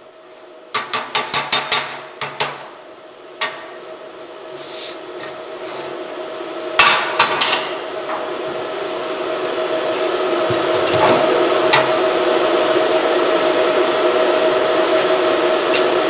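Hammer striking a freshly cut steel plate to knock the cutting dross off its back: a quick run of about eight sharp taps in the first couple of seconds, then a few scattered heavier hits. Underneath is a steady mechanical hum that grows louder through the rest.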